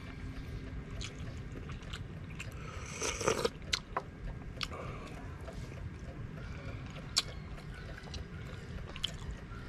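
A person eating noodles from a bowl: a short slurp about three seconds in and scattered light clicks of chopsticks and spoon against the bowl, over a steady low rumble.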